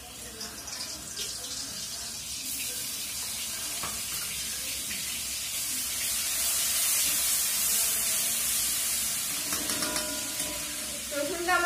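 Garlic paste sizzling in hot oil in a steel kadai as it is stirred with a spatula. The hiss swells over the first few seconds, then holds steady, with a few light scrapes of the spatula.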